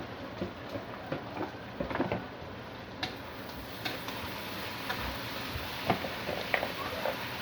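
Plastic push-down food chopper clicking and knocking irregularly, about once a second, as carrots are worked through it.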